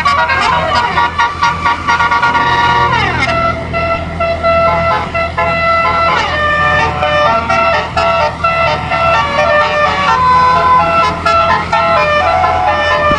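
Twelve-note 'basuri' telolet air-horn set, its trumpets fed by a compressor and switched by a MIDI controller, playing a melody as a string of held notes that step from pitch to pitch. Twice the pitch slides sharply downward, a few seconds in and again about halfway through. A steady low hum runs underneath.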